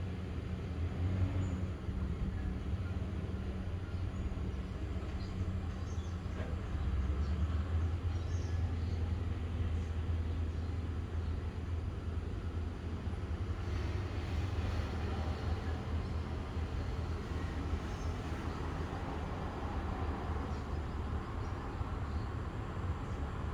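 A steady low rumble of outdoor background noise, with a few faint short high sounds over it.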